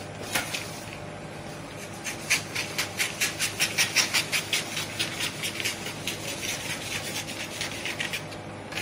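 Scissors snipping through pattern paper along a curved line: a steady run of crisp cuts, about four a second, loudest for a few seconds in the middle, then softer.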